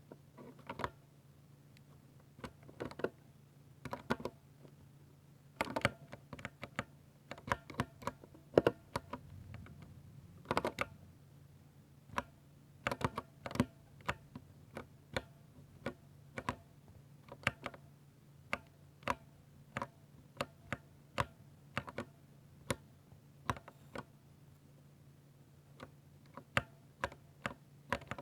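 Keystrokes on a 60% mechanical keyboard with Ducky silver switches: irregular clusters of clacks for the first ten seconds or so, then single keypresses at a slow, even pace of about one a second. A faint steady hum runs underneath.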